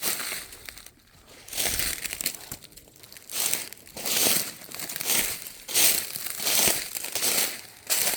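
Footsteps crunching through dry fallen leaves on a forest trail, about one step every second.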